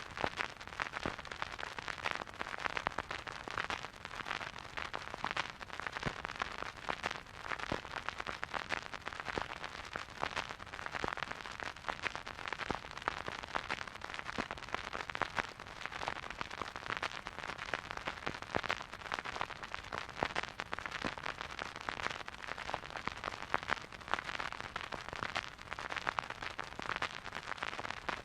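Vinyl record surface noise: a steady hiss with dense, irregular crackles and pops from the stylus riding a silent groove.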